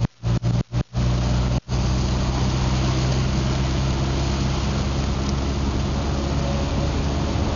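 Citroën BX driving, heard from inside the cabin: a steady engine hum under an even hiss of tyre and wind noise. The sound cuts out in several short gaps during the first second and once more a little later.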